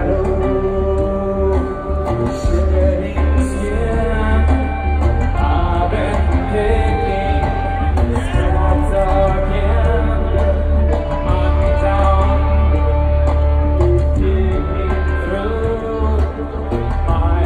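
Rock band playing live through a concert PA, with electric guitars and keyboards over a strong steady bass and long held melodic notes.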